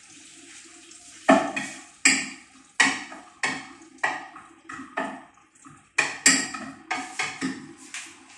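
A cooking utensil stirring in a pot on the stove, knocking and scraping against the pot's sides in a steady run of sharp strokes, about two a second, starting about a second in.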